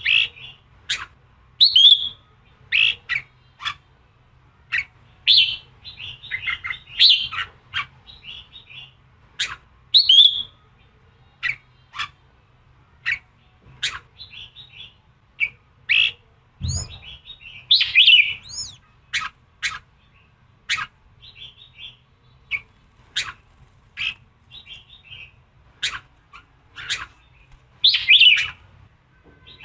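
Red-whiskered bulbul singing a fired-up challenging song ('giọng kình'), a rapid string of short, sharp chirps broken by brief warbled phrases. A single low thump sounds a little past halfway.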